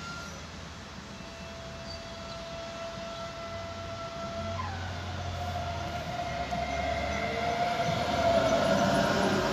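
Electric S-Bahn multiple unit approaching and running past along the platform, growing steadily louder. Its electric drive whines in steady high tones that step down in pitch about halfway through, over a rumble of wheels on the rails.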